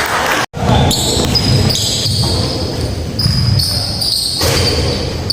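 Basketball game noise echoing in an indoor gym: a ball bouncing amid players' and spectators' voices. The sound drops out for an instant about half a second in.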